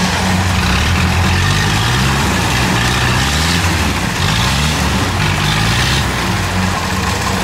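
Kubota DC70 rice combine harvester running at work, its diesel engine loud and steady with the pitch wavering slightly under changing load.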